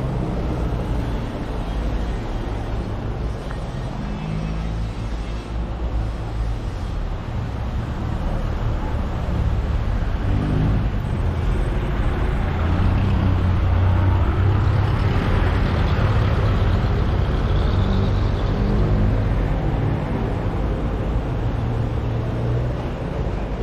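City street traffic: vehicle engines running and passing as a steady low rumble, swelling for a while in the middle.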